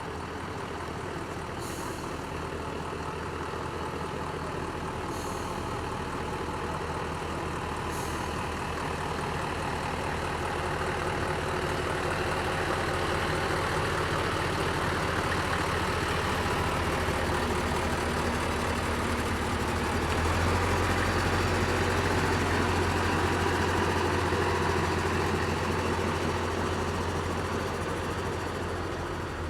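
Heavy vehicle's diesel engine running at low speed with a steady low hum, getting louder toward the middle and louder again about two-thirds of the way through.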